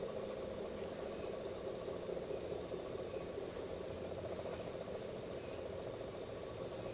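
Faint, steady mechanical hum, like an idling engine, unchanging throughout.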